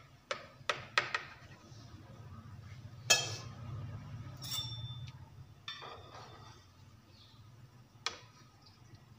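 A steel kitchen knife clicking against a plate several times in quick succession as it cuts through a caramel pudding, then a louder clink with a short ring about three seconds in. Later a metal cake server scrapes and taps on the plate as it slides under a slice.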